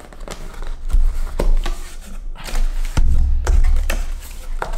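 A cardboard shipping box being handled and opened: flaps and sides scraping and tapping, with a series of sharp clicks and dull thumps as it is moved on the table.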